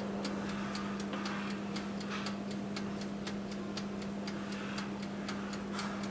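Oven running with a steady hum while its mechanical timer ticks evenly, about four times a second.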